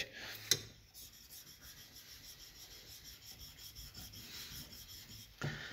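Steel chisel rubbed back and forth on a diamond sharpening stone: a faint scraping rasp as the edge is honed.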